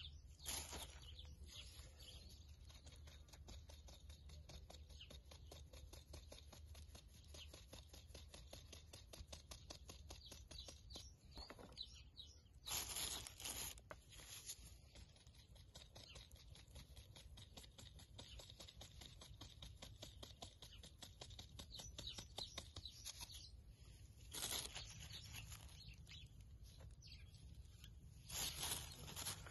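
Flour being sifted through a fine stainless-steel mesh sieve into a plastic bowl: a quiet, rapid patter of the sieve being shaken. A few louder, brief rustles break in, the first about a second in and the last near the end.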